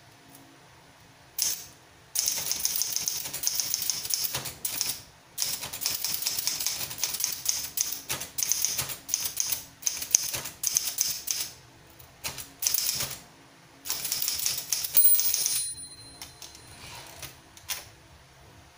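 Olympus 500 DLX manual portable typewriter being typed on fast, its typebars clacking in quick runs broken by short pauses. Near the end of the typing a bell-like ring sounds once, the margin bell, followed by a few quieter clicks as the carriage is returned.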